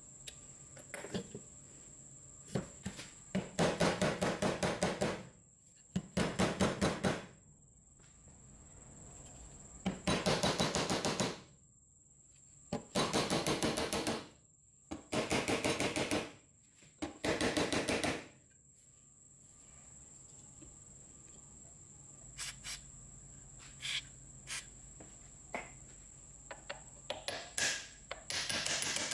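The rusty metal housing of a Hitachi G13S1 angle grinder being knocked down repeatedly onto a round bar held in a vise: six bursts of rapid clattering blows, each about a second long. Scattered lighter clicks and knocks of tool on metal follow.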